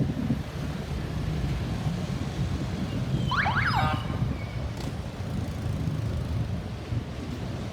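Steady road-traffic rumble, with a short siren chirp from an emergency vehicle a little over three seconds in: two quick rising sweeps.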